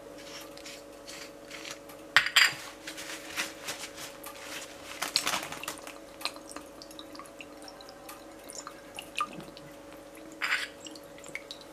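A glass bottle of soy sauce handled over a ceramic bowl: small clicks and taps of the bottle and its cap, and sauce dripping from the upturned bottle into the bowl, with a steady low hum underneath.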